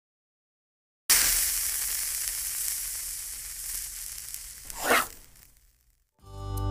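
A sizzling sound effect starts suddenly about a second in and slowly fades. A short whoosh swells and dies away near the five-second mark. Music begins to swell in just before the end.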